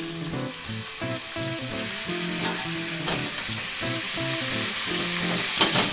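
Shimeji mushrooms and onion sizzling in an oiled frying pan as soy-mirin marinade is poured in and stirred, a steady hiss of liquid hitting the hot pan.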